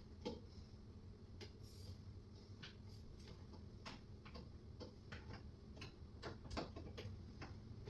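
Faint, unevenly spaced clicks and ticks from a hand screwdriver driving screws into flat-pack cabinet panels.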